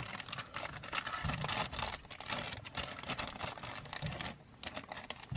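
A small model-kit box and its packaging being handled, giving a dense, irregular run of light clicks and crinkles.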